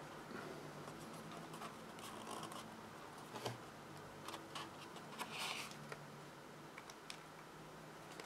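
Faint handling of cardstock: a die-cut label pressed onto a paper pillow box, with scattered light clicks and taps and a longer rustle about five seconds in, over a faint low hum.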